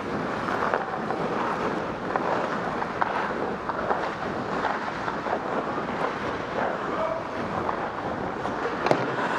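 Hockey skates gliding and scraping on rink ice with air rushing over the microphone as the wearer skates, broken by a few faint clicks and one sharper click near the end.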